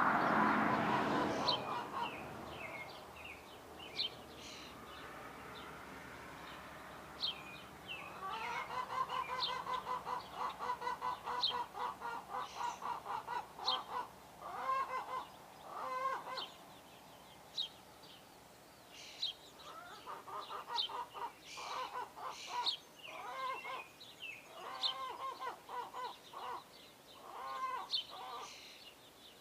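Small birds chirping around bird feeders in short high notes, with two long runs of rapid, repeated, lower honking calls from a larger bird, starting about eight seconds in and again near twenty seconds. A louder rushing noise fades out in the first two seconds.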